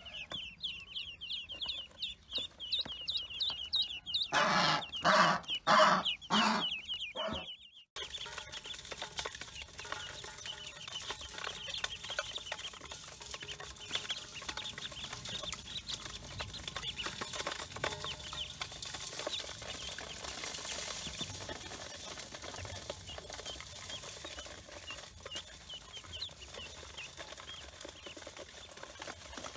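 A crowd of ducklings peeping, many short, high, falling calls overlapping. About four seconds in, loud rustling and knocks drown them out for several seconds. From about eight seconds in, the peeping goes on fainter over a steady hiss.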